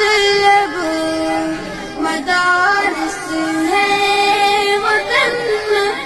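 Background music: a high solo voice singing an Urdu nasheed, holding long notes and sliding between pitches.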